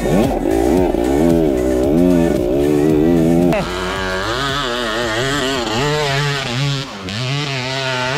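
Dirt bike engine revving up and down over and over, its pitch rising and falling with each blip of the throttle. A little under halfway in, the note shifts lower and choppier.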